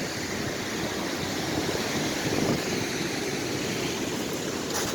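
Strong wind rushing steadily over the microphone, mixed with the surf of a rough sea.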